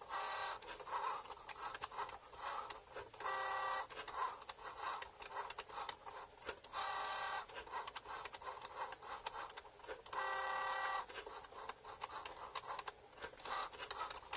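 Cricut Joy cutting machine cutting vinyl: its motors whir in four short runs of about half a second to a second as the carriage and mat move quickly, with fast clicking and ticking in between as the blade works.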